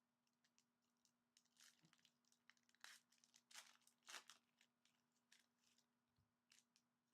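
Faint tearing and crinkling of trading-card packaging being ripped open by hand, in a run of short rips, loudest between about one and a half and five seconds in.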